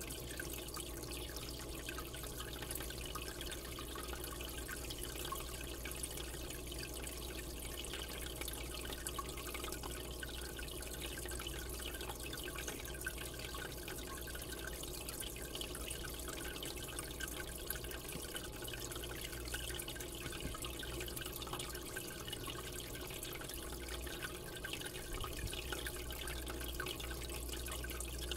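Aquarium water trickling and splashing steadily, with a low steady hum underneath.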